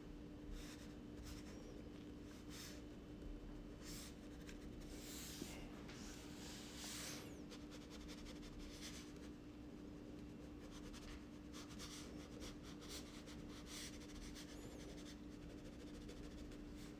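Black Crayola crayon scratching across drawing paper in many short strokes, coming thick and fast in the middle, over a steady low hum.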